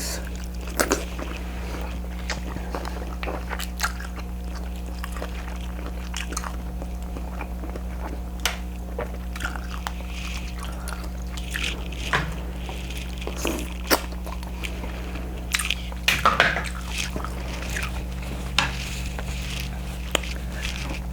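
Close-miked eating of boiled shrimp: wet chewing and mouth smacking, with scattered small clicks and crunches at irregular moments, over a steady low hum.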